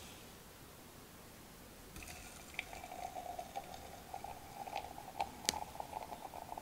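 Egg-yolk-and-cream custard base poured in a thin stream through a fine mesh sieve into a glass measuring jug, a faint fluttering pour that starts about two seconds in, with a few light clicks.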